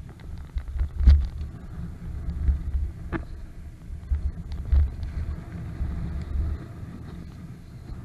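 Wind buffeting the microphone in uneven gusts while riding an electric scooter, with scattered clicks and knocks.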